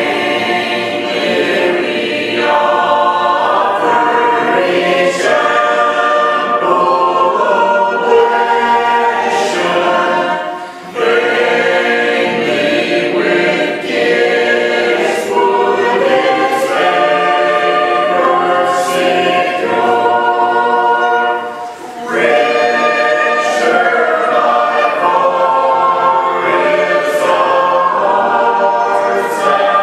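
Congregation singing a hymn a cappella in four-part harmony, mixed voices without instruments. The singing starts at the opening and goes on with short breaks between phrases about eleven and twenty-two seconds in.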